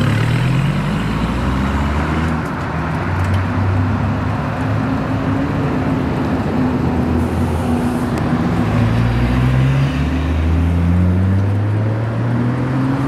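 Dodge Viper ACR's V10 accelerating hard away, its engine note climbing in several pulls through the gears. Near the end another car's engine comes closer.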